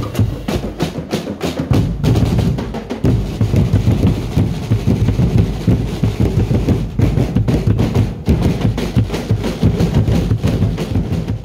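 Festival drum corps playing a fast, dense, driving beat on drums.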